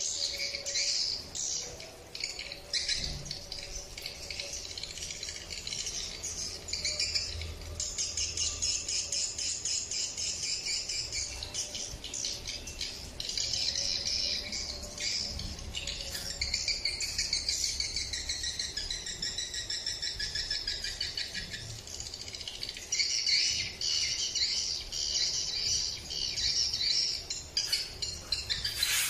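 Swiftlet twittering calls broadcast from the horn loudspeakers of a Nestamp A-14 swiftlet-calling unit: a rapid, high chittering in long phrases of several seconds with short breaks, played as a lure to draw swiftlets to a nest house.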